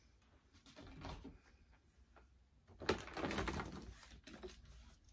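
Rustling and handling noise as items are rummaged for in a shopping bag. The noise starts suddenly about three seconds in and fades out over the next second or two.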